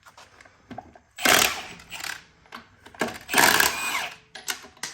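Impact wrench running in two bursts of about a second each, spinning wheel lug nuts off on a chrome socket.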